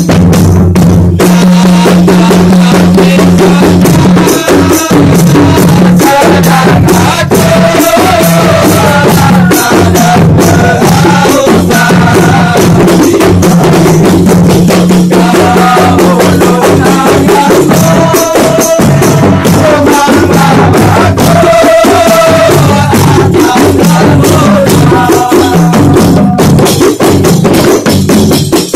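A kompang troupe beating Malay hand-held frame drums in a fast, dense rhythm, with a sung melody over the drumming.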